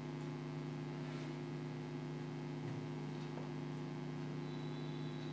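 Steady electrical mains hum, a low buzz with a few fixed tones and faint hiss, unchanging throughout.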